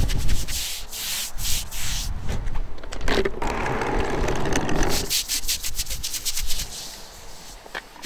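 Stiff-bristled wooden scrubbing brush scrubbing wet chalk paint off a concrete wall in quick back-and-forth strokes, about three to four a second. About two seconds in, water poured from a bucket splashes onto the concrete for a few seconds, and then the scrubbing resumes more faintly.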